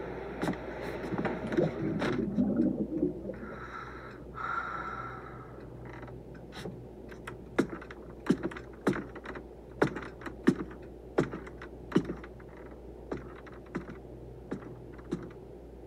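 A series of sharp, irregular clicks and knocks at a low level, about one every half second in the second half, with no music.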